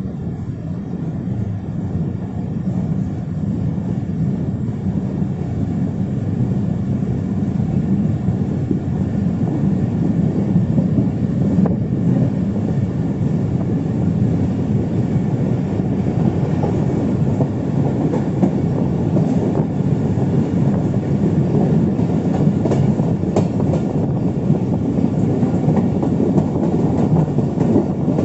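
Passenger train running on the track, heard from aboard a coach as it pulls out of a station and gathers speed. A steady rumble of wheels on rail grows louder over the first ten seconds or so, then holds.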